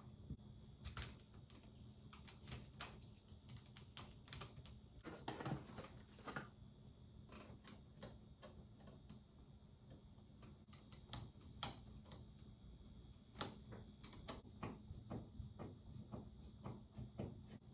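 Faint, irregular clicks and taps of a screwdriver and stiff wires being worked at a wall outlet box as a 50-amp, 240-volt outlet is wired.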